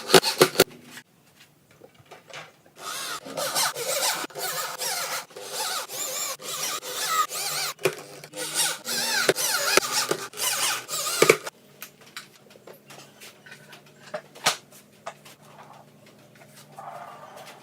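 Handheld power tool working wood, running in a long series of bursts with a whine that rises and falls, from about three to eleven seconds in. After that come quieter scattered clicks and knocks.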